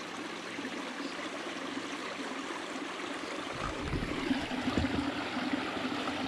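A small stream running steadily over loose rocks as it spills into the river, with a few low bumps about halfway through.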